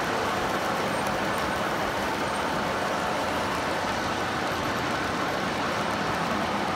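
Model freight trains running past, a steady rumble and rattle of metal wheels rolling on track and cars clattering, with no change over the few seconds.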